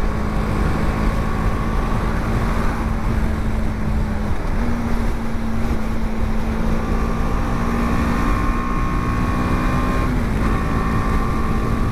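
BMW G 310 GS's 313 cc single-cylinder engine running at highway cruising speed, with heavy wind rush on the microphone. Its steady note dips briefly about four seconds in, comes back slightly higher, and dips again about ten seconds in.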